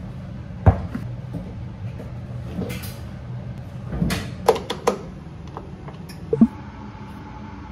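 Laundry being loaded into a top-loading washing machine: a plastic laundry basket and the washer are handled with scattered knocks and clicks, with a cluster of them around the middle. A sharp click comes near the end as the Start button is pressed. A steady low hum runs underneath.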